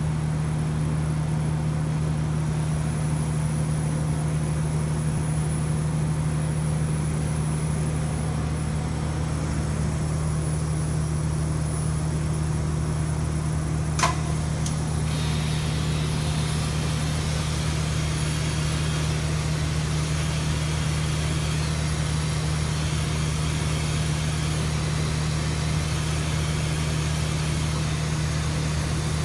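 Thermal spray booth equipment running with a steady low hum, heard through the booth window. About halfway through there is a click, after which a steady hiss joins in as the thermal spray gun fires on the shaft.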